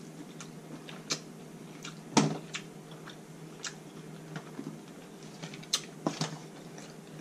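Irregular sharp clicks and cracks from eating and handling king crab legs: shell snapping and legs scraping in an aluminium foil pan, the loudest about two seconds in, over a faint steady low hum.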